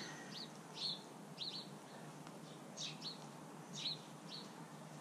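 Small birds chirping: short, high chirps, often two close together, about once a second, over faint steady background noise.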